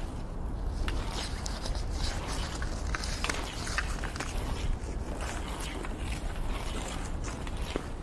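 Kids playing hockey: irregular clacks and scrapes of play over a steady low rumble.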